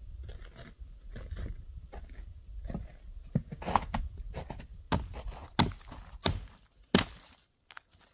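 A string of irregular knocks and clicks over a low rumble, the sharpest few coming in the second half.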